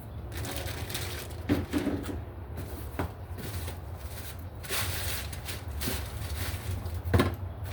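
Handling noises of a new throttle body and its packaging: a few sharp knocks and short bursts of rustling, over a steady low hum.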